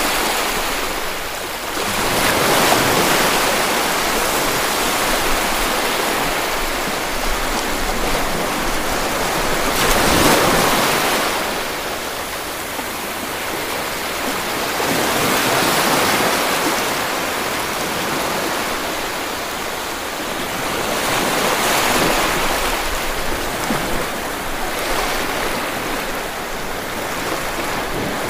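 Steady rushing noise, like surf or running water, swelling and easing every several seconds.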